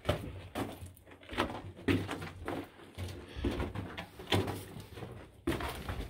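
Footsteps on the dirt and rock floor of a narrow mine tunnel, roughly two steps a second, each with a short echo.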